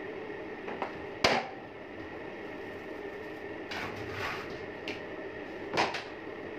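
Metal shotgun parts being handled over a tray during a petrol clean-up: a sharp knock about a second in and another near the end, a few lighter clicks and a brief rustle in between, over a steady background hum.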